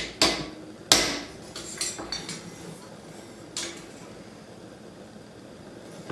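A few irregular hammer blows on hot iron against an anvil, bending down one side of a horseshoe being forged into a hinge. Each blow is a sharp metallic clank with a short ring; the loudest comes about a second in, and the blows stop for the last couple of seconds.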